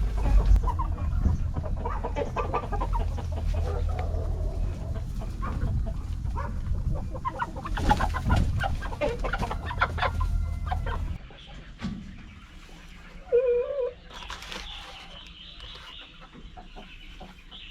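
Chickens clucking, at first over a low rumble that stops about eleven seconds in, then more quietly with one louder call about two seconds later.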